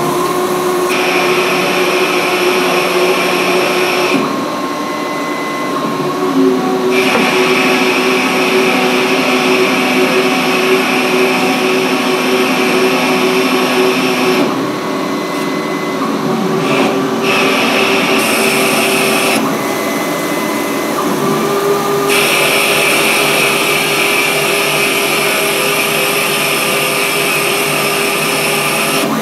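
Emcoturn 120 CNC lathe turning a metal part with a high-speed-steel tool: the spindle, driven by a 5 hp motor on a VFD, runs with a steady whine. A higher hissing machining noise comes and goes in stretches of a few seconds as the roughing passes run.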